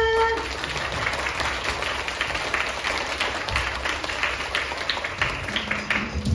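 Audience applauding, many hands clapping irregularly, just after a held vocal note cuts off about half a second in.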